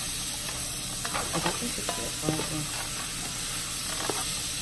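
Sausage, onions and bell peppers sizzling in hot oil in a Dutch pot, with a steady hiss. A utensil clicks and scrapes against the pot a few times, about one to two and a half seconds in.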